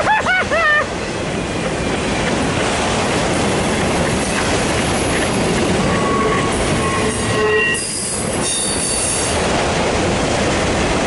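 Empty autorack freight cars rolling past at close range: a steady rumble and rattle of steel wheels on the rails. Wavering wheel squeals come in the first second, and a few short, steady squeal tones come about six to seven and a half seconds in.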